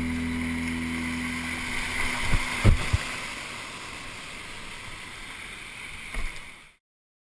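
Whitewater rapids rushing around a kayak, with a few low thumps about two to three seconds in and once more near the end. Background music fades out at the start, and the sound cuts off suddenly near the end.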